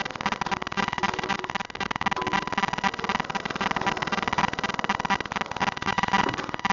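Walk-behind lawnmower's small engine running steadily, with a rapid, even pulsing.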